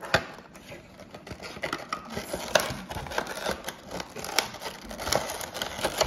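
Cardboard Funko Pop box and its clear plastic insert being handled and opened by hand: irregular clicks, taps and rustling, with a sharp click right at the start.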